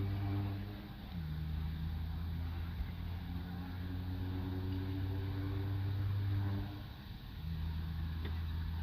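Car engine idling, heard from inside the cabin as a steady low hum that dips briefly about a second in and again near the end.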